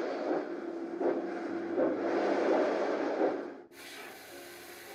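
Steam locomotive sound effect: a rushing noise of exhaust chuffs in a slow, uneven rhythm. Near the end it cuts off sharply and is replaced by a quieter, steady hiss of steam.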